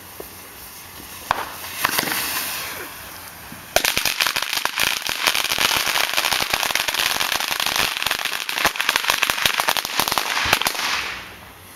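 Firecrackers going off inside a burning barbecue grill. A couple of single pops and a hiss come first; then, about four seconds in, a dense, rapid string of bangs and crackles begins. It runs for about seven seconds and dies away near the end.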